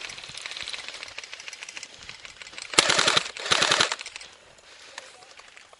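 Airsoft guns firing on full auto. Fast, quieter rapid fire comes first, then two loud bursts of about half a second each, close together, about three seconds in.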